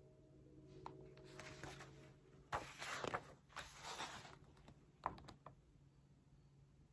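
Faint rustle of a hardcover picture book's paper pages being handled and turned, in two short stretches around the middle, with a couple of light taps.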